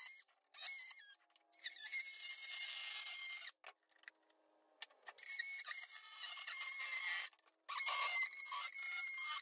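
A handheld cordless power cutting tool saws through the thin plastic wall of a 5-gallon bucket in three runs of a couple of seconds each, with short pauses between them.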